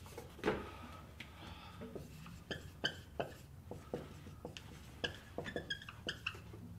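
Dry-erase marker on a whiteboard: a series of faint short squeaks and taps as letters are written stroke by stroke, thickest in the second half.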